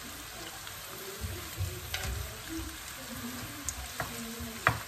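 Shrimp frying in butter in a frying pan, with a steady sizzle. A wooden spatula stirs them, with a few knocks against the pan near the end, the last one the loudest.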